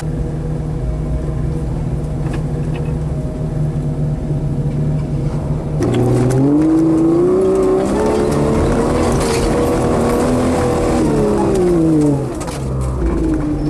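Off-road vehicle's engine heard from inside the cab, running steadily at low revs, then revving up hard about six seconds in. The revs stay high as it drives up a steep snowy climb and drop off around twelve seconds, then pick up again near the end.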